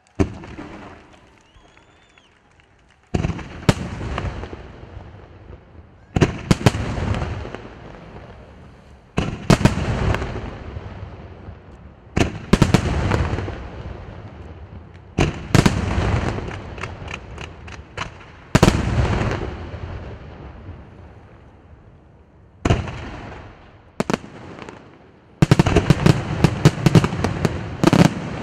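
Aerial firework shells bursting about every three seconds, each a sharp bang followed by a fading crackle of stars. About 25 seconds in, a rapid string of bangs follows in quick succession.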